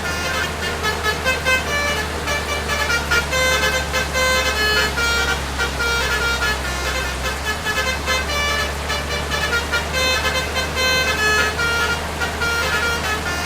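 Basuri melody horn playing a tune of short, quickly changing notes over a steady low engine drone.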